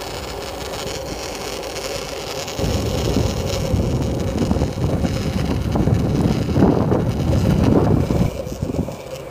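Longboard wheels rolling over pavement, a steady rumble mixed with wind buffeting the microphone; the rumble gets louder about two and a half seconds in.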